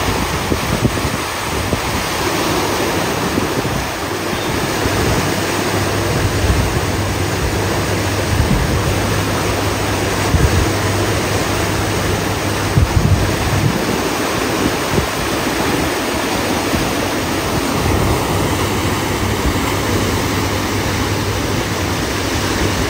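Swollen, muddy canal water fed by the Sutlej river rushing and churning white through the arches of a masonry bridge: a loud, steady sound of fast water. Wind buffets the microphone with occasional low thumps.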